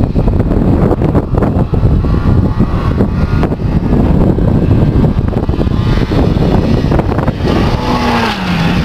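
Ski-Doo Formula two-stroke snowmobile engine revving as it comes at a jump, its note rising and then dropping near the end as the sled leaves the snow. Heavy wind rumbles on the microphone throughout and is the loudest sound.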